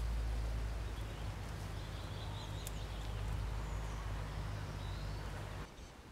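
Faint bird calls over a steady low rumble and hiss of outdoor background noise, which drops away sharply near the end.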